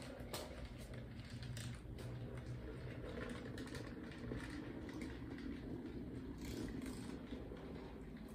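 Small model railroad train moving slowly along the track: a faint steady motor hum that swells briefly midway, with a few light clicks.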